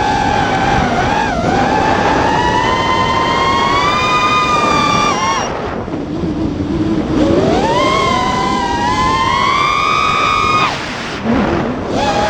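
FPV quadcopter's brushless motors whining over a rush of wind. The pitch climbs steadily, falls away sharply about halfway through as the throttle is chopped, then surges back up. It drops again near the end, blips briefly, and climbs once more.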